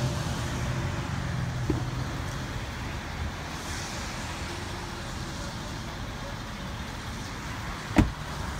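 Steady traffic hum with a low engine drone that fades over the first few seconds. A light latch click comes about two seconds in, and near the end a single heavy thud as a Ford F-250 crew-cab rear door is shut.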